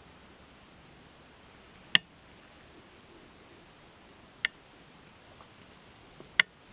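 Three sharp, separate clicks against a faint steady hiss: one about two seconds in, one about halfway, and one near the end.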